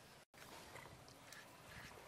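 Near silence: faint background hiss with a few faint ticks, and a split-second dropout to total silence about a quarter of a second in.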